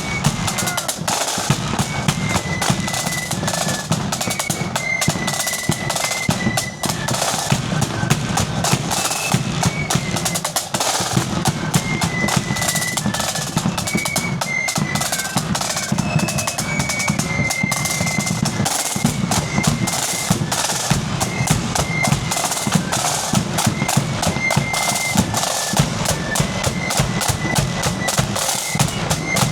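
Marching flute band playing: rapid snare drum rolls and a pounding bass drum beat under a high flute melody.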